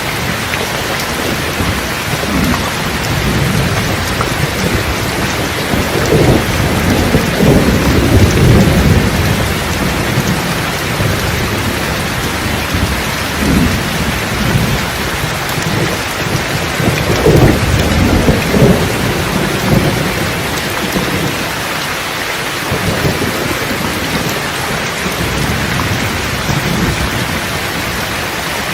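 Steady rain falling, with thunder rolling and rumbling low under it in several swells; the two biggest rolls come about a quarter of the way in and again about two thirds through.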